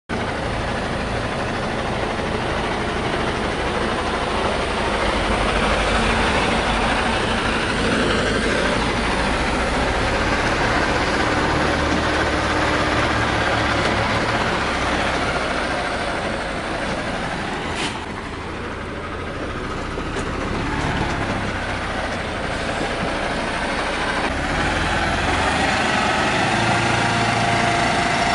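Mercedes-Benz Actros MP4 truck's diesel engine running steadily, close by. The sound dips briefly about two-thirds of the way through and grows a little louder near the end.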